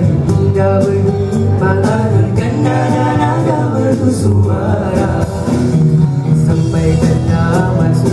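Nasyid group of four boys singing together into handheld microphones, a steady low part running under the melody.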